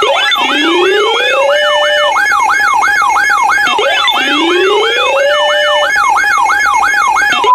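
Layered electronic siren sound effects of a mock emergency alert. A fast yelp sweeps up and down about three times a second over a steady tone, and slower rising wails start at the beginning and again about three and a half seconds in.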